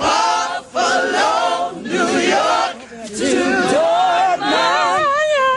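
Gospel choir singing together, several voices in loud, lively song. Near the end one voice holds notes with a wide vibrato.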